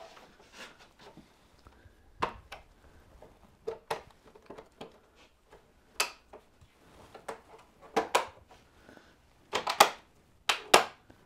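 Scattered plastic clicks and knocks as a rear light unit is pressed and fitted into a BMW S1000RR's plastic tail fairing, with the loudest cluster of clicks near the end.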